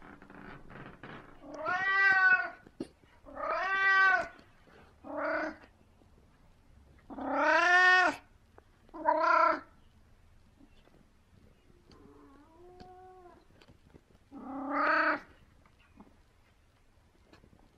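An elderly (17-year-old) orange-and-white domestic cat meowing repeatedly and loudly up close: seven drawn-out meows, each rising then falling in pitch, the sixth much quieter than the rest.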